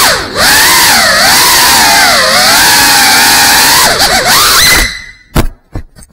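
GEPRC Cinelog35 cinewhoop's brushless motors and ducted 3.5-inch props whining loudly, the pitch rising and falling as the throttle changes. About five seconds in the motors cut out, followed by a few sharp knocks as the drone crashes and tumbles.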